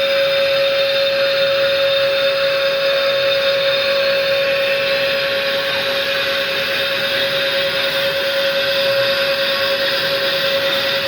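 Hunter BL 505 brake lathe running steadily, its motor and drive giving a constant noise with one strong steady tone.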